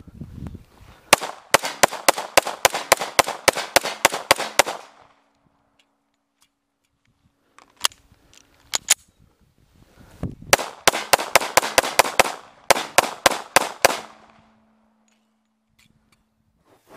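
.45 ACP semi-automatic pistol fired rapidly in two long strings of about fifteen shots each, roughly five shots a second, with a few seconds' pause between the strings broken by two single sharp cracks.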